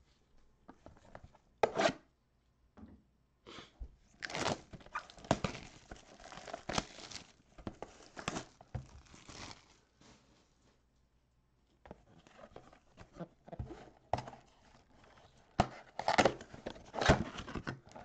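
Plastic shrink wrap being torn and crinkled off a 2021 Donruss Football mega box of trading cards, then the box's cardboard flap handled and pulled open near the end.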